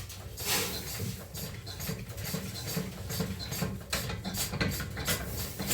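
Traditional stone flour mill running: a steady low rumble with quick, irregular clicking and clattering over it.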